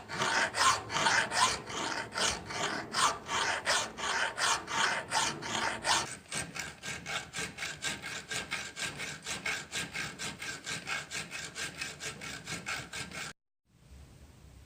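A hand tool rasping back and forth on steel in quick, even strokes, about three a second. After about six seconds the strokes turn faster and lighter, then they cut off abruptly near the end.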